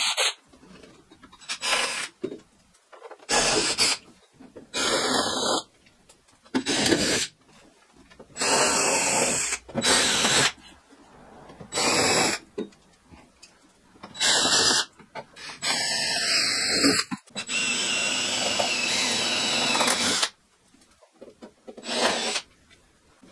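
DeWalt 18V XR cordless drill/driver running in a dozen or so short bursts, taking fasteners out of the aluminium cockpit panels, with one longer run of about four seconds in the second half.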